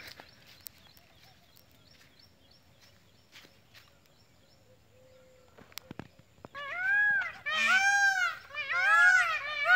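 Indian peafowl calling: after a quiet stretch of walking, a rapid run of loud, rising-and-falling calls starts about two-thirds of the way in, about three a second.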